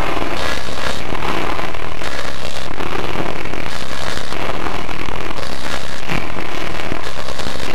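Fireworks sound effect of dense crackling and popping, loud and heavily distorted by audio effects, at an unvarying level.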